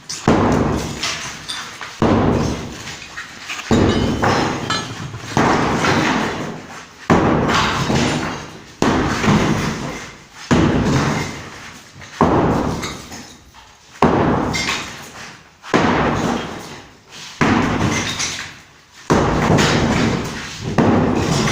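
Heavy hammer blows of demolition work, about a dozen struck steadily roughly every two seconds, each followed by a rattling, fading tail.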